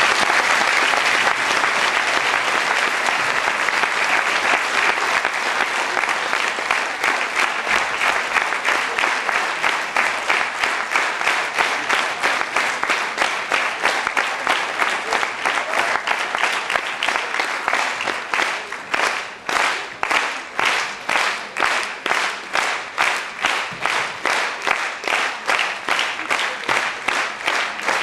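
Audience applauding. About two-thirds of the way through, the clapping falls into a steady unison rhythm of a few claps a second.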